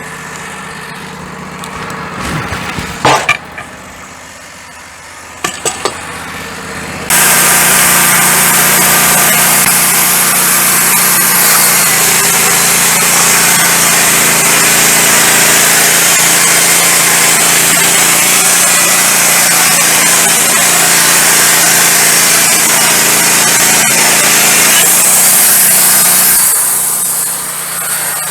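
Wood-Mizer LT15 Go band sawmill with its engine idling, with a few sharp clunks. About seven seconds in, the band blade engages and saws lengthwise through a pine log: a loud, steady cutting noise that lasts about twenty seconds and eases off near the end.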